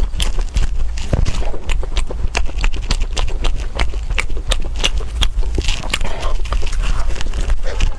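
Close-up eating sounds: chewing with many quick, irregular clicks and crunches over a low rumble.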